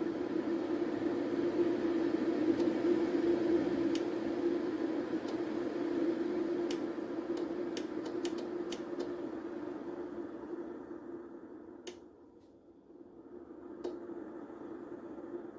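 CHULUX single-serve capsule coffee maker brewing: a steady pump hum with scattered sharp clicks and sputters. The hum fades about twelve seconds in as the brew winds down, then comes back softly.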